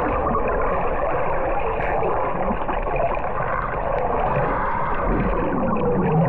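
Steady water noise, even in level, with no distinct splashes or knocks.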